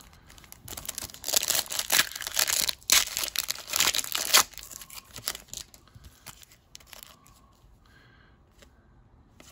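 Foil wrapper of an Upper Deck hockey card pack being torn open by hand, crinkling and crackling loudly for about four seconds. Fainter rustling follows as the cards are handled, fading out near the end.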